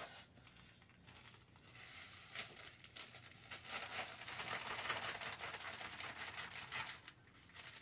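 Plastic bag of light brown sugar crinkling and rustling as a measuring cup is scooped into it, a run of quick scrapes that builds from about a second and a half in and fades near the end.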